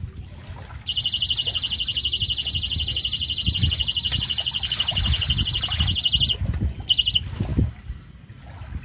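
Electronic carp bite alarm sounding a fast, unbroken run of high beeps for about five seconds, then a short burst a moment later: a fish is taking line on one of the rods. Wind rumbles on the microphone underneath.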